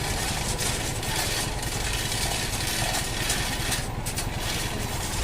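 An engine idling steadily, with a low rumble and a constant hiss.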